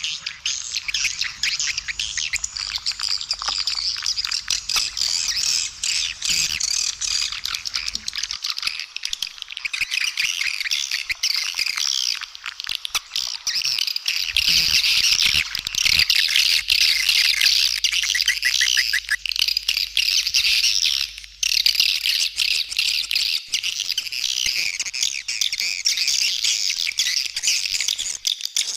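Edible-nest swiftlets calling in a dense, unbroken stream of high chirps and twitters, like a colony. It is a swiftlet calling (lure) sound, played at swiftlet houses to draw the birds in.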